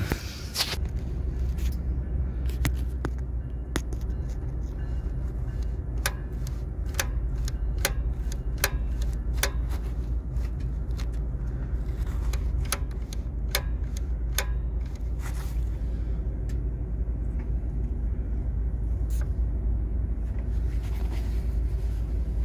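Truck diesel engine idling steadily as a low, even rumble heard from underneath the vehicle, with scattered sharp clicks and taps throughout.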